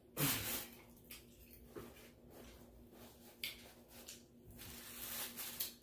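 Paper napkin rustling as hands are wiped, with soft handling noises from the food containers and a faint steady hum underneath. The loudest rustle comes just after the start.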